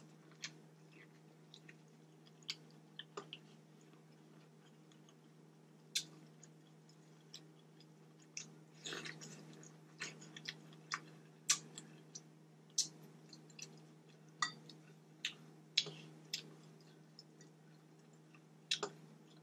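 A person chewing sauce-covered boiled vegetables close to the microphone, with irregular wet clicks and smacks that come thicker in the second half, over a faint steady hum.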